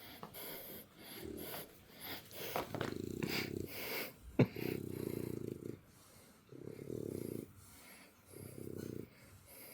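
Puppy snoring or snorting in a run of long, noisy breaths about a second apiece, with a sharp click about four and a half seconds in.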